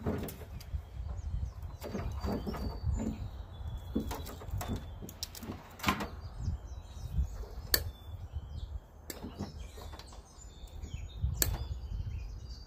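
Sharp snips and clicks of side cutters and hand tools cutting the wires free from an AC condenser unit's contactor, spaced a second or two apart over a steady low rumble, with birds chirping faintly.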